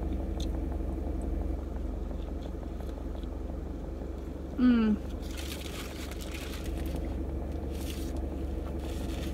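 A person chewing a mouthful of sourdough breakfast sandwich, with one short hummed "mm" about halfway through, over the steady low hum of the parked car.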